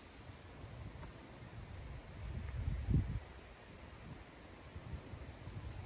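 Crickets chirping in a steady high-pitched pulsing trill, about two pulses a second, over a low rumble that swells to its loudest about three seconds in.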